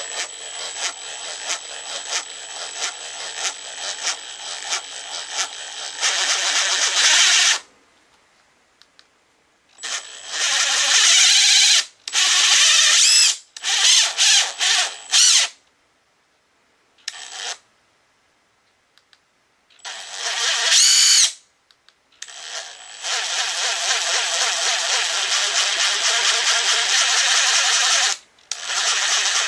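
Makita TD172D impact driver running without load in repeated trigger bursts, starting and stopping several times, one burst rising in pitch as it speeds up, the longest runs lasting about five to seven seconds. It is a junk unit with an abnormal noise when it spins.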